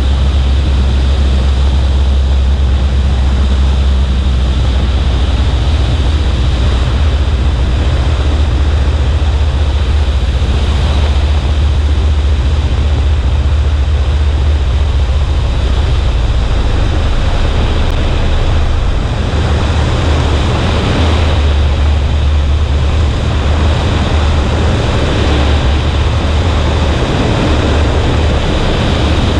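Cessna 140A light aircraft in flight: the steady low drone of its engine and propeller under heavy wind rush on the wing-mounted microphone.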